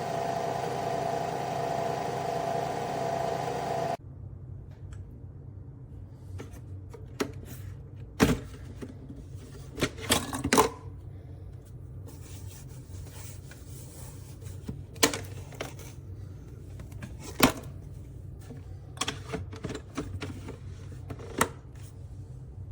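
A coffee machine's motor runs with a steady hum, then cuts off suddenly about four seconds in. After that come scattered light clicks and a few sharp knocks of parts and a cup being handled.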